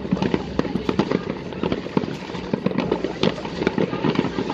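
Fireworks going off: a dense, unbroken run of sharp pops and crackles, several a second and overlapping.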